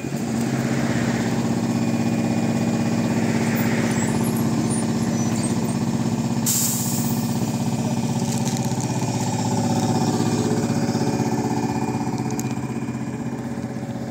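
AKSM 321 trolleybus standing at a stop with its doors open, its onboard equipment giving a steady hum, with a short burst of hiss about six and a half seconds in. It then pulls away, and its sound fades near the end.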